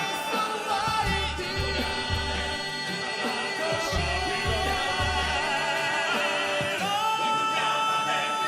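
A solo voice singing long held and gliding notes over musical accompaniment, with low drum hits that stop about five and a half seconds in, after which the notes are held without them.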